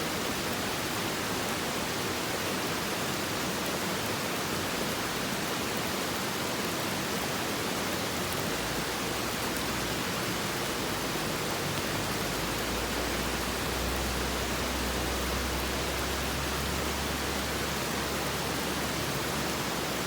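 Strong creek flowing: a steady, full rush of water with no let-up.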